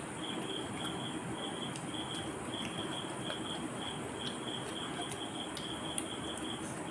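A cricket chirping in short, evenly repeated pulsed trills over a steady background hiss, with a few faint clicks.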